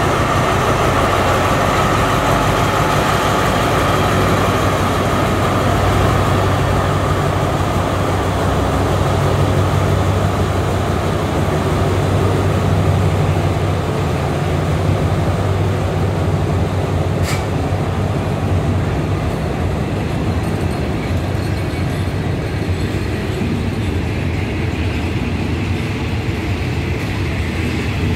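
Diesel-electric train pulling out at low speed: the Alstom locomotive's diesel engine hums under power alongside at first, then a steady rumble of passenger coaches rolling past on the rails, a little quieter in the second half. A single sharp click about 17 seconds in.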